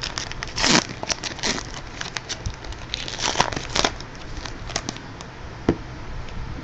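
Trading card packs being torn open and their wrappers crinkled by hand: irregular crackling with a few louder rips, one a little under a second in and a couple around the middle.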